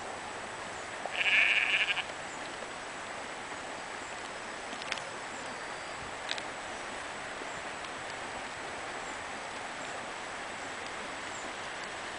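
A sheep bleating once, a single call of about a second, about a second in.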